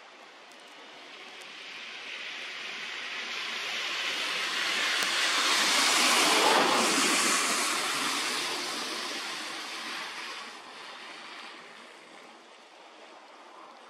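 A vehicle passing by: a hissing tyre-and-road noise that swells to a peak midway and fades away over about ten seconds.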